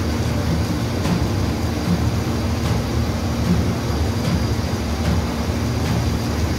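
Mobile crane's diesel engine running steadily under load while hoisting a heavy truck: a continuous low rumble with a faint steady hum.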